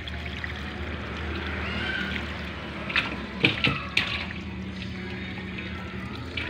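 Live fish thrashing and splashing in shallow water in a plastic tub, over a steady trickle of water, with a few sharp splashes about three to four seconds in as a fish leaps against the side. A steady low hum runs underneath.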